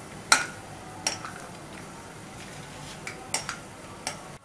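Steel ladle clinking and scraping against a wok while stirring peanuts in hot oil: about six sharp knocks, the loudest about a third of a second in.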